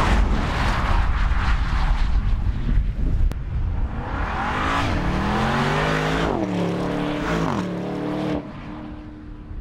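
2017 Porsche Panamera Turbo Executive's twin-turbo V8 heard from outside as the car drives by. First comes a loud rush of engine and road noise. From about halfway, the engine note falls, climbs again and dips, then drops to a quieter steady tone near the end.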